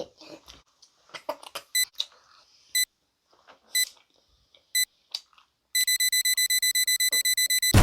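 Electronic beeps like a bomb-timer countdown: single beeps about once a second, then quickening into rapid beeping of about nine a second near the end. Faint mouth and handling clicks come between the early beeps.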